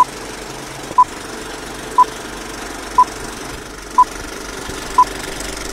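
Film-leader countdown sound effect: a short beep of the same pitch once a second, six in all, over a steady hiss.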